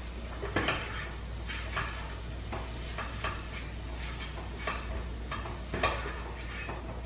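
Chopped garlic and onion frying in olive oil in a pan, sizzling, while a utensil stirs and scrapes against the pan in irregular strokes, about one or two a second.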